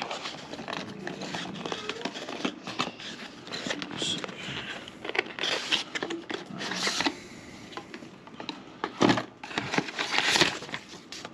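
Product packaging being handled as the box is opened and its contents taken out: irregular crinkling and rustling of paper and plastic, with scattered clicks and a few sharper knocks about nine and ten seconds in.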